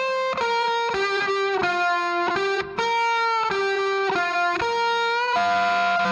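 Music: an electric guitar playing a lead melody of held notes, stepping from note to note about every half second, with no drums.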